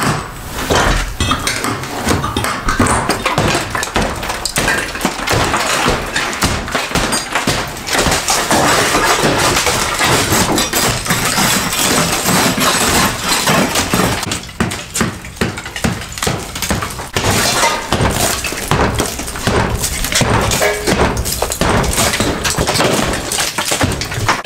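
Old plaster being smashed off a wooden-lath wall with hammers: a dense, unbroken run of blows, cracking plaster and falling chunks.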